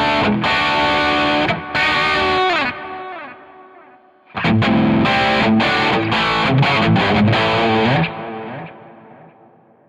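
Electric guitar played through a Zoom G5n multi-effects processor with a distorted tone: a phrase of bent notes left to ring out and fade, then a second phrase a little over four seconds in that stops short and decays to silence near the end.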